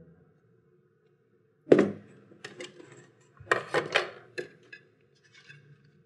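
Small hard objects handled at a desk as someone goes through a case of keepsakes. A sharp knock comes about two seconds in, then quick clinks and taps in two clusters, with quiet gaps between.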